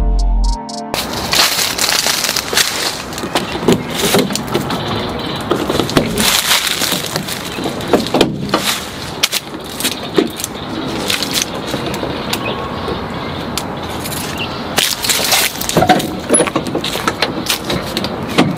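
Music cuts off about a second in, followed by a run of sharp knocks, clunks and rattles from the rear doors of a Ford Transit van being opened and things in its cargo area being handled.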